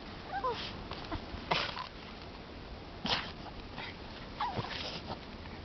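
A dog eating snow: short noisy bites and snorts come every second or so, with two brief faint whines, one about half a second in and one near 4.5 s.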